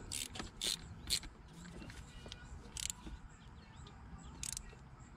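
Compact hand ratchet with a 10 mm socket, clicking in several short bursts spaced irregularly as the nuts on a new aluminum coolant neck are tightened.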